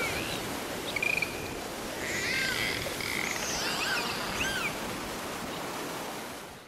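Dolphins whistling: a string of short whistles rising and falling in pitch over a steady rush of water.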